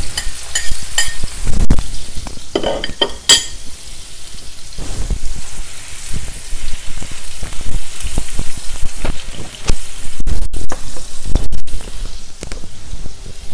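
Lamb steaks sizzling steadily as they fry in oil and plant butter in a frying pan. Over the first few seconds a metal spoon clinks against a plate as chopped garlic is scraped into the pan, and after that a utensil knocks and scrapes against the pan as the meat is moved.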